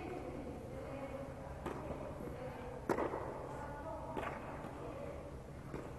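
A tennis rally: four sharp racket-on-ball strikes about a second and a half apart, the second the loudest, each ringing briefly in the echoing air-supported tennis dome over a steady low hum.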